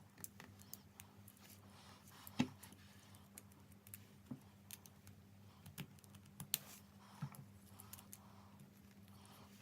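Lego plastic bricks clicking and rattling as pieces are handled and snapped together, in faint irregular clicks with one sharper click about two and a half seconds in, over a steady low electrical hum.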